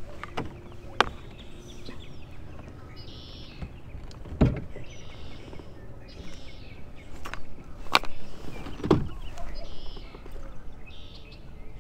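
Handling noise on a plastic fishing kayak while a landed bass is dealt with: a couple of sharp knocks and two heavier dull thumps against the hull. A short high chirping repeats about once a second in the background.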